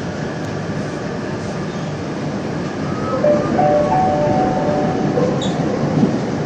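Metro train running, heard from inside the car: a steady rumble of wheels and car noise. From about halfway it gets louder and a whine with a few stepped tones comes in.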